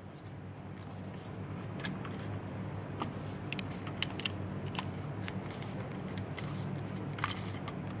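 Screwdriver turning the green ground terminal screw on a GFCI outlet to tighten the bare ground wire, giving scattered faint clicks and scrapes of metal on metal, over a steady low hum.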